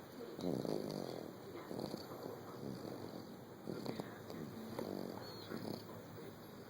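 A sleeping puppy snoring: a run of short, pitched breaths, roughly one a second.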